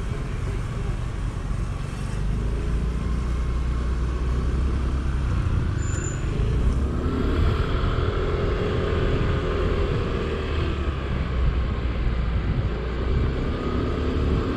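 Yamaha Neo scooter running under way in traffic, with heavy wind rumble on the helmet-mounted microphone. The engine note rises and falls about halfway through and again near the end.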